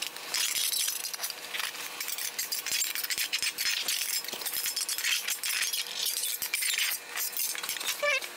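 Thin sheet-metal panel crinkling and clinking as its edge is twisted into tucks with a hand tucking tool to shrink the edge: many light, irregular ticks and crackles with no heavy blows.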